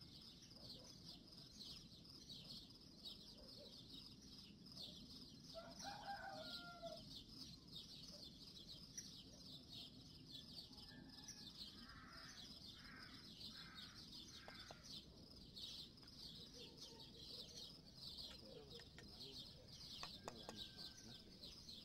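Faint farmyard ambience: a steady high insect chirring, a rooster crowing once about six seconds in, and a chicken clucking four times about halfway through.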